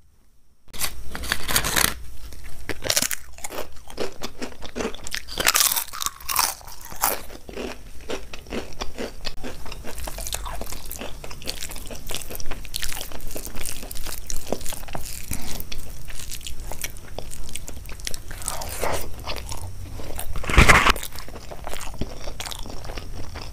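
Close-miked eating: crunching and chewing of crisp food, with irregular crackles and mouth sounds throughout. There is one louder thump near the end.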